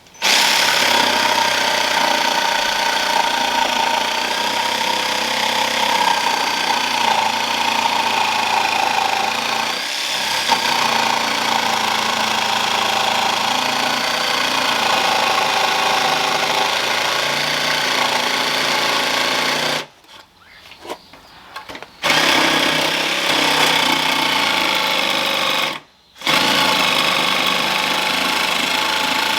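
Jigsaw cutting through thick yellow pine board, running steadily for about twenty seconds, then stopping and starting again twice with short pauses between runs.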